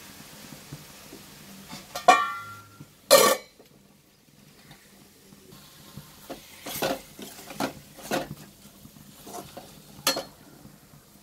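Steel spoon clanking and scraping against an aluminium kadai while stirring cooked-down onion and tomato. There are two loud metal clanks about two and three seconds in, the first one ringing, then a run of lighter knocks and scrapes.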